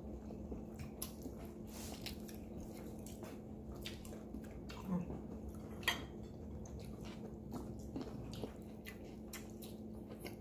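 Faint chewing and mouth clicks as roasted Cornish hen is eaten with the fingers, with soft crackles of the skin and meat being pulled apart by hand, over a steady low hum.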